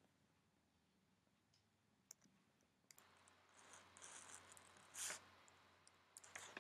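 Near silence: room tone with a few faint clicks and a brief soft hiss about five seconds in.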